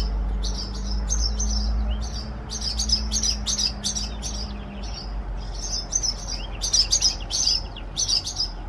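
Birds at a nest chirping rapidly and over and over in short, high calls, a few a second. The mother bird is agitated. Under them runs a low steady hum that drops about five seconds in.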